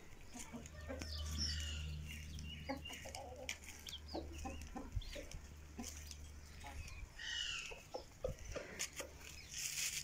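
Domestic chickens clucking, with short calls scattered through and a louder run of calls about seven seconds in. Short sharp taps come and go throughout, over a low steady rumble.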